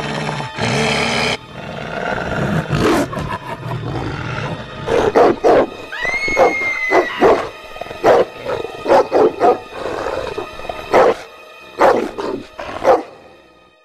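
Spirit Halloween Lunging Mad Dog animatronic playing its recorded growling sound effects through its speaker, with a run of short, loud snarls coming about twice a second through the second half before fading out.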